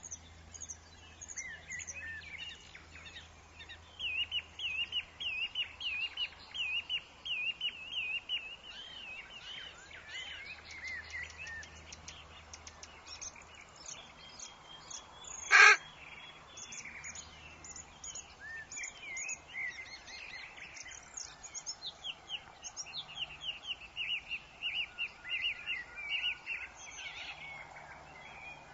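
Woodland birds chirping, with fast repeated runs of rising chirps. About halfway through, one brief, loud, sharp sound stands out above the birdsong.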